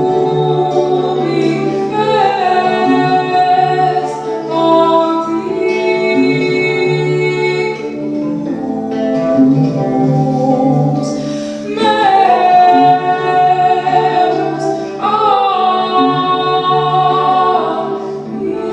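Live medieval-style folk music: a woman's voice singing long, held phrases over a steady low drone.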